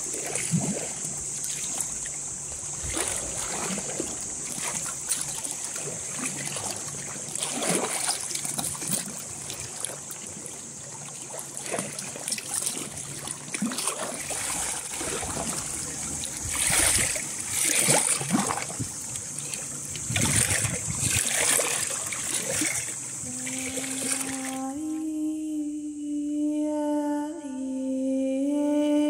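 Sea waves splashing and washing against rocks, in irregular surges over a steady high hiss. Near the end a person starts humming a low, slow tune.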